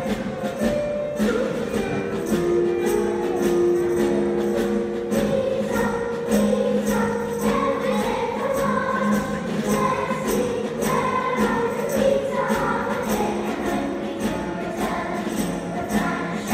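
Large children's choir singing a song to a steady percussion beat.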